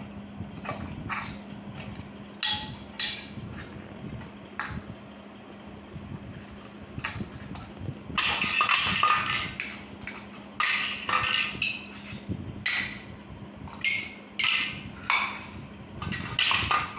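A small child banging and clattering household objects as makeshift instruments: irregular knocks, with a busier, louder stretch of clatter in the second half.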